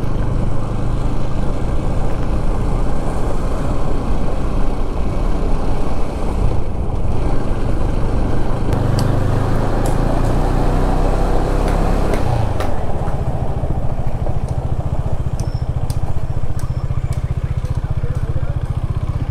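KTM Duke 250's single-cylinder engine running as the motorcycle is ridden along the road. About twelve seconds in, the engine settles into an even low throb, with a few sharp ticks after it.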